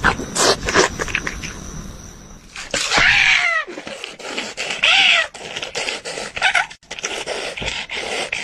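An animal giving short cries that rise and fall in pitch, three times, among irregular knocks and rustling.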